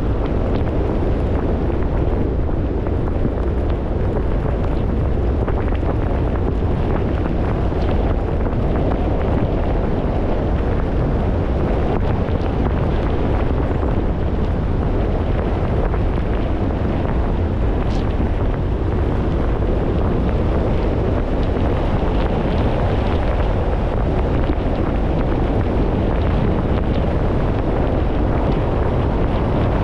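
Car driving on a wet road: a steady rumble of engine, tyres and wind noise, with tyres hissing on the wet tarmac.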